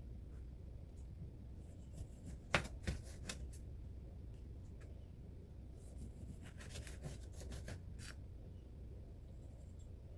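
Small kitchen handling sounds over a low steady hum: a few sharp clicks and light rustles in two short clusters, the loudest click about two and a half seconds in.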